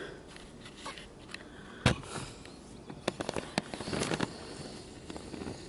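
Footsteps crunching over dry leaves and twigs while walking up to a paper target, an irregular series of crackles. About two seconds in there is one much louder sharp crack.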